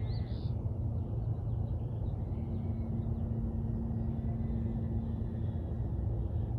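DJI Avata FPV drone's motors and propellers in flight: a steady low rumble with a faint whine that rises and falls in pitch near the start and holds steady through the middle.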